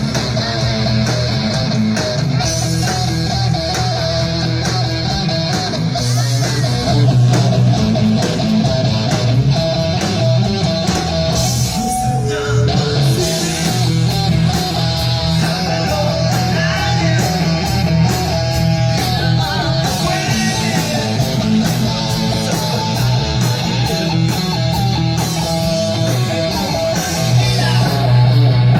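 Live rock band playing: electric guitar over bass and a steady drum beat, with no clear vocal line.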